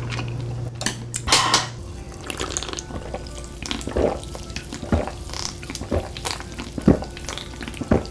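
Close-miked gulping of cola drunk from a can, with a swallow about once a second in the second half. Before that come a few sharp wet mouth clicks.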